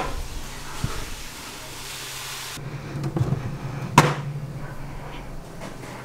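Clicks and knocks of a Dometic CRX80 upright 12 V fridge being handled: the freezer compartment flap snaps at the start, and a single sharp click comes about four seconds in. A hiss runs for the first two and a half seconds, over a faint steady low hum.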